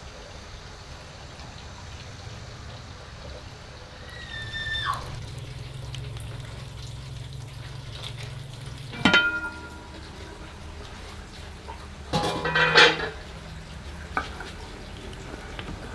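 Metal pots and utensils clattering in a kitchen: a sliding squeak, then a clank about nine seconds in and a longer ringing clatter around twelve seconds, over a low steady hum.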